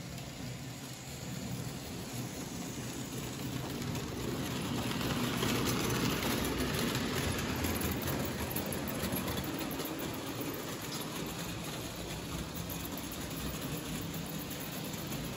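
Märklin H0 model trains running on the layout's track, with a steady rolling rattle of wheels on the rails. It grows louder about four seconds in as a train passes close by, is loudest around six to eight seconds, then slowly fades.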